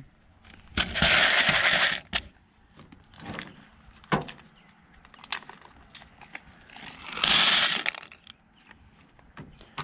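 Many small lead airgun slugs clattering in a plastic bowl as a hand pours and stirs them. There are two louder bursts of rattling, one about a second in and one near the end, with scattered single clicks between.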